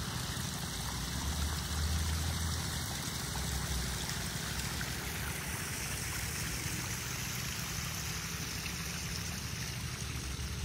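A small rock waterfall spilling into a backyard koi pond, a steady trickling splash, with a low rumble underneath.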